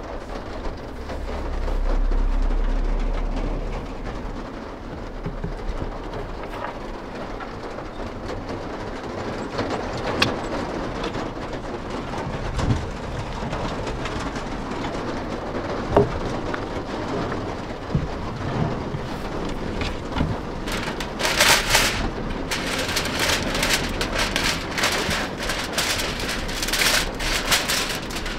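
Steady rain on the van's roof, with a low rumble about two seconds in. A few clicks and knocks as a gas canister is fitted to a camping stove, then aluminium foil crinkling loudly as it is pulled off the roll near the end.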